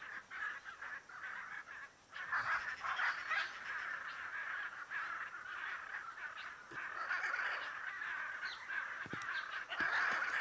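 Hyacinth macaws calling: many harsh squawks from several birds overlapping, with a short lull about two seconds in.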